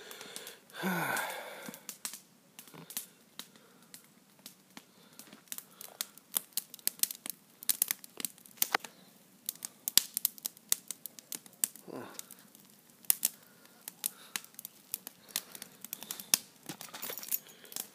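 Footsteps crunching on dry twigs, leaves and needles: an irregular run of sharp crackling clicks, denser from a few seconds in.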